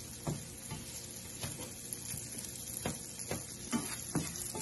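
Sliced onion and garlic sizzling gently in butter in a nonstick frying pan, with a slotted spatula scraping and tapping the pan about six times as it stirs.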